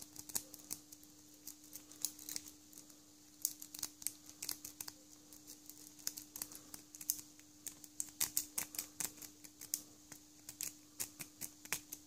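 A lock pick working the pin stacks of a tiny Master Lock cylinder held in the fingers: irregular light metallic clicks and scrapes, some in quick runs, over a faint steady hum.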